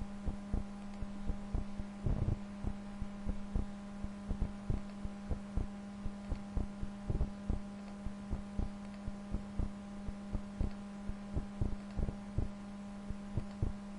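Computer mouse clicking irregularly, about two clicks a second, as points are placed one by one in digitizing software, over a steady electrical hum.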